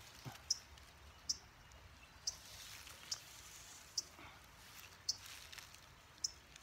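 A faint, short, high-pitched chirp repeating about once a second, with soft rustling and handling in the grass in between.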